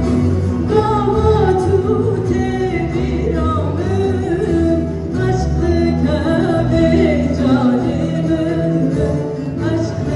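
Live Turkish folk music: a woman singing a wavering, ornamented melody, backed by an ensemble of violins, saz, oud, guitar and frame drums with a davul.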